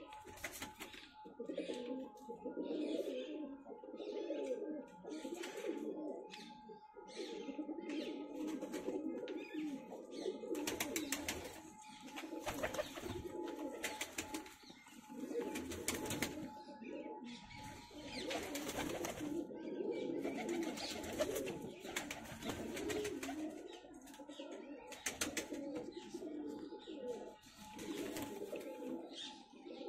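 Several domestic pigeons cooing almost without a break, with brief rustles and scrapes now and then, most of them in the middle of the stretch.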